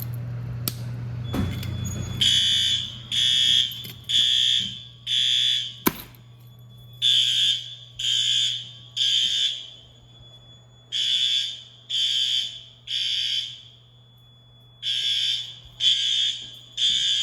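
Fire alarm horns sounding in groups of three short, high-pitched blasts with a pause between groups: the temporal-three evacuation pattern. A thump comes just before the alarm starts, about a second and a half in.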